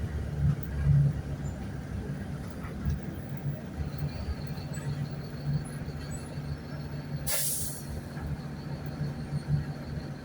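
Mercedes-Benz OF-1519 bus's diesel engine running with a steady low drone and a faint high whistle from about four seconds in. A short burst of compressed-air hiss from the air brakes comes about seven seconds in.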